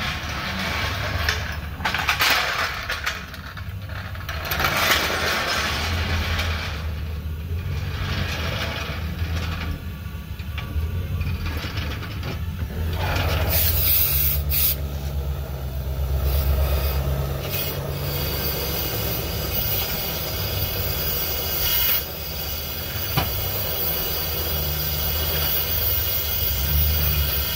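Gas torch flame burning inside a two-stroke motorized-bike expansion-chamber exhaust: a steady rushing noise with a low rumble, rising and falling in strength. The pipe is being heated to burn off carbon buildup.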